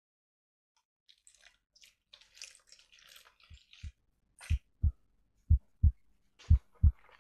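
Heartbeat sound effect: pairs of low thuds, lub-dub, about once a second, starting about three and a half seconds in and quickly growing louder. Faint scattered rustling comes before it.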